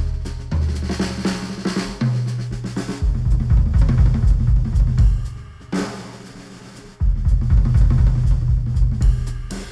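Instrumental music with a full drum kit and a heavy bass line, played back through Sennheiser headphones and recorded by microphones on a measurement rig. About six seconds in the drums and bass drop out briefly, then come back in full about a second later.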